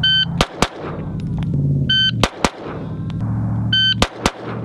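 A shot-timer beep and then two fast pistol shots about a quarter second apart, three times over. This is the doubles drill: a pair fired as fast as the trigger can be pulled at each beep.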